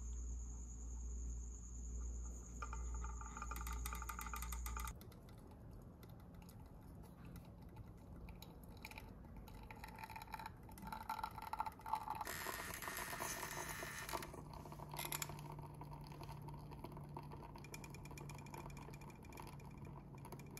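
Faint sounds of a ROK EspressoGC manual lever espresso maker pulling a shot: small mechanical ticks and espresso trickling into a glass, with a short hiss a little past the middle. A steady high whine and low hum run through the first five seconds and stop suddenly.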